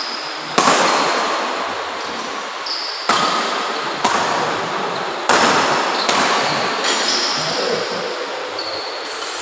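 Badminton doubles rally: about six sharp racket hits on the shuttlecock at uneven intervals, each ringing briefly in the hall, with short high shoe squeaks on the court floor between them.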